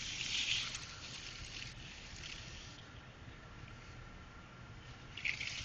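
Faint rustling and rubbing of a sweetgum twig and its leaves being handled, stronger in the first two seconds and again near the end, over a steady low background hum.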